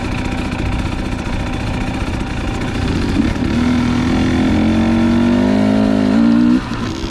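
Dirt bike engine running on a trail ride; from about three seconds in its revs climb steadily and get louder, then drop off suddenly near the end.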